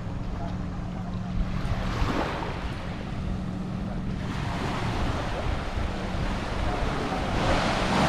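Small waves washing up on a sandy beach, swelling about two seconds in and again near the end, over wind rumble on the microphone and a steady low hum.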